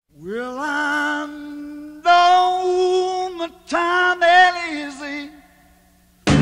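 A lone voice singing three long, wavering notes with no accompaniment, sliding up in pitch into the first. Band music cuts in right at the end.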